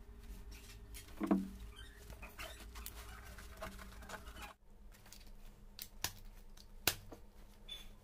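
Fabric backpack rustling and scraping as it is handled and turned over, with a dull thump about a second in. Two sharp clicks near the end as fingers work the backpack's combination zipper lock.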